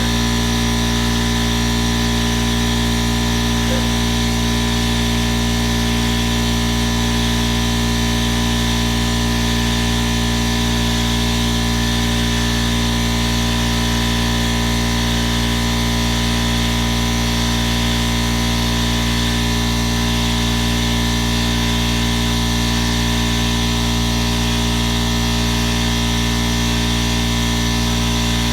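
A machine running steadily: an even, loud drone of noise with several steady tones in it, unchanging throughout.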